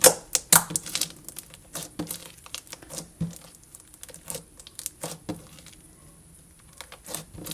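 Foam-bead slime being stretched and squeezed by hand, crackling and popping in irregular clicks that thin out after about five seconds.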